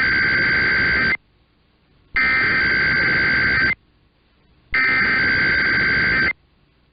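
Emergency Alert System SAME header: three raspy digital data bursts of about a second and a half each, a second of quiet between them, announcing a required weekly test.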